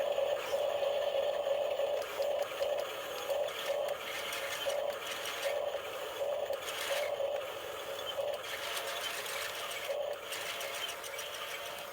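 Small electric motor and gearbox of a radio-controlled construction truck whirring steadily, with a rhythmic grinding pulse from the gears.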